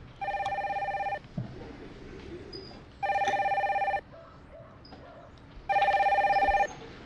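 Desk telephone ringing three times with an electronic trilling ring, each ring about a second long with short pauses between.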